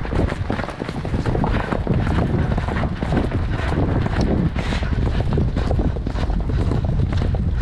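Hoofbeats of a ridden horse moving fast across grass, heard through heavy wind rumble on the microphone.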